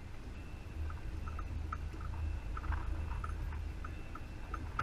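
Low wind rumble buffeting the microphone on an open boat deck, with light irregular clicks about twice a second.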